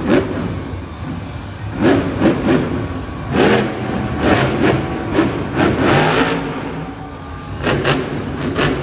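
Grave Digger monster truck's supercharged V8 engine revving in repeated short bursts, each rising sharply and then falling away, over a steady engine rumble.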